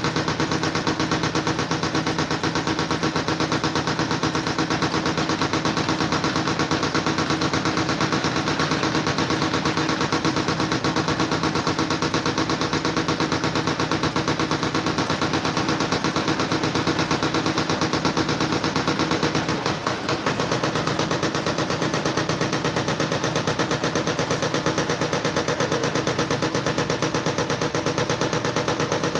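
A fast, steady mechanical rattle of rapid, evenly spaced clicks over a constant hum, dipping briefly about twenty seconds in.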